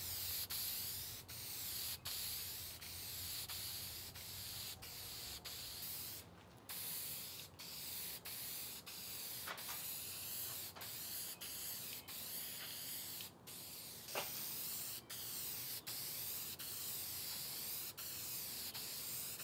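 Aerosol can of clear shellac spraying onto wood: a steady hiss in long passes, broken by many brief pauses.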